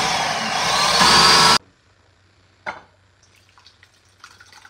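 Ninja Professional 1500-watt blender running on a load of tomatillo and jalapeño salsa, its motor whine rising and getting louder about a second in, then cutting off suddenly after about a second and a half. A single knock follows a second later.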